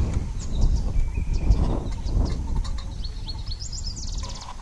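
Wild birds chirping with short high calls, and a fast high trill near the end, over a steady low rumble.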